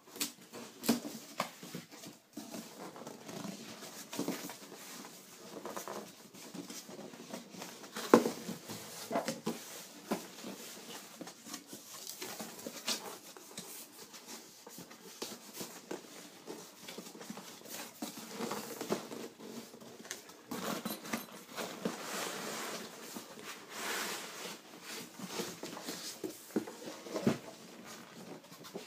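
Cardboard box being opened and a soft tool bag lifted out by hand: scattered scrapes, taps and rustling, with one sharp knock about eight seconds in and a longer stretch of steady rustling later on.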